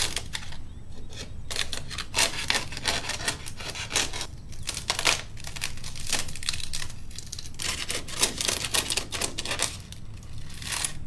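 Dry papery envelope of a wasp nest being torn and peeled apart, crackling and tearing in irregular bursts.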